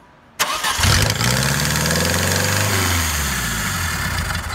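Saturn 1.9-litre four-cylinder engine starting about half a second in and running at a high idle with loud exhaust noise blowing out of the open EGR valve port. The loud exhaust and high idle are a good sign that the EGR passages to the exhaust and the intake manifold are clear.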